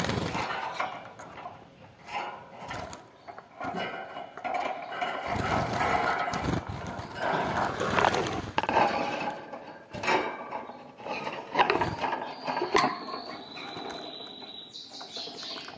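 Caged European goldfinches fluttering and hopping, with irregular clicks and knocks from wings and feet on the wire cage, perch and feeder, over a continuous background din. A thin, steady high tone comes in for about three seconds near the end.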